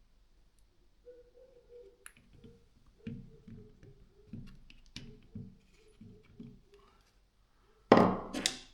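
Soft knocks and thuds of hammer drill parts being handled and fitted together during reassembly, about two a second, then a loud sharp clatter near the end.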